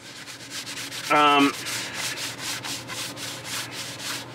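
Paper towel rubbing quickly over a large plastic model-kit part in rapid, repeated strokes, wiping off excess thinned black panel-line wash. A man's voice sounds briefly about a second in.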